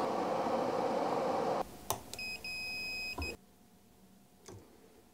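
Small fume extractor fan running steadily, cut off abruptly about one and a half seconds in. Then a high electronic beep, a short one followed at once by a longer one lasting about a second, and later a single faint click.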